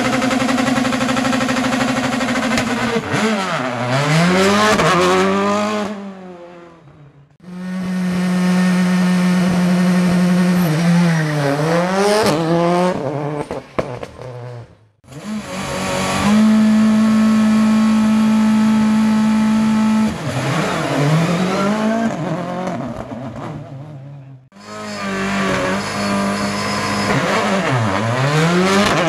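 World Rally Cars' turbocharged engines, heard in four separate bursts broken by brief silences. Each holds a steady high note at full throttle, then the pitch dips and climbs again several times as the cars brake down through the gears and pull away.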